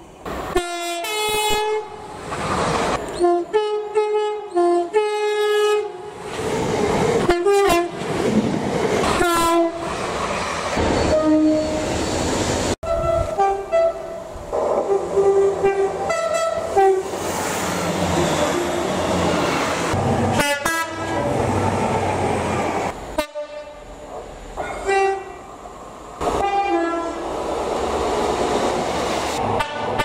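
British passenger trains sounding two-tone horns: repeated high–low blasts in several clusters, with the rumble and wheel clatter of passing trains between them. There are abrupt breaks where one clip cuts to the next.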